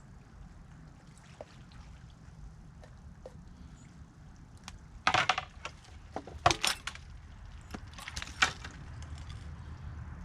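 Three short bursts of splashing and clatter over a steady low rumble, as a small flathead catfish is landed: the first about halfway through, the second a second later, the third near the end.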